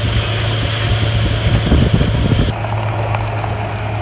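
Boat engine running steadily under way, a constant low hum, with wind buffeting the microphone; the wind rumble stops abruptly about halfway through.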